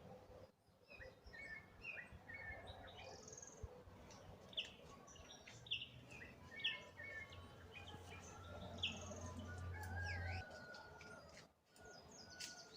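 Several wild birds chirping and calling, with quick falling whistled notes in the middle. A low steady hum runs underneath for a few seconds in the middle and stops about ten seconds in.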